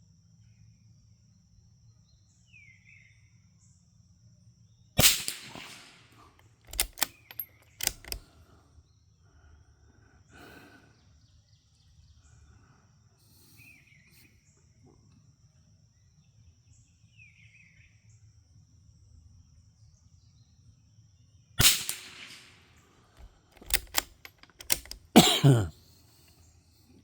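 Brno Model 1 .22 LR bolt-action rifle fired twice, about sixteen seconds apart, each sharp shot followed by a few quieter clicks as the bolt is worked. Another loud, sharp sound comes near the end.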